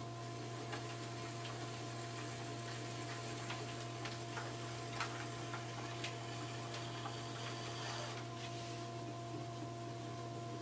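Electric potter's wheel running with a steady hum while a leather-hard clay mug spins in a Giffin Grip. Scattered light ticks and scrapes come from the trimming tool working the clay.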